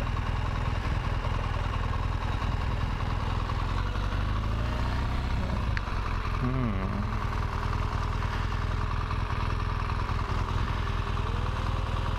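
BMW R1200 GS Adventure's boxer-twin engine running at low revs on a dirt track, under a steady low rumble.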